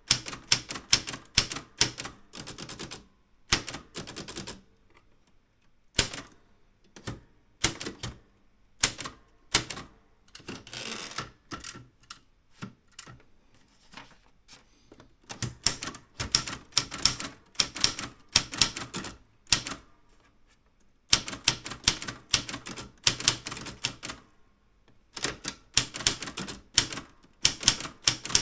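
Typewriter being typed on: runs of rapid key strikes broken by short pauses of a second or two.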